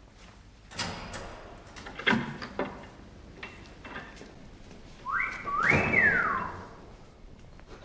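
A person gives a two-part wolf whistle about five seconds in: a rising note, then a higher note that rises and falls away. It is preceded by a few short knocks and rustles.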